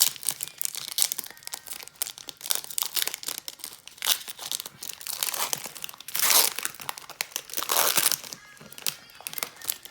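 Foil wrapper of a Panini Chronicles baseball card pack crinkling and tearing as it is worked open by hand: dense crackling throughout, with two longer, louder rustles about six and eight seconds in.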